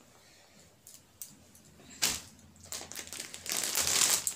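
Sarees and their wrapping rustling and crinkling as they are folded away and picked up, starting about two seconds in and getting louder near the end.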